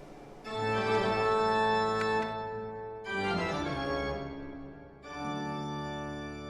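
Closing music: three long held chords in turn, each one sustained and then easing off, with the last one fading away.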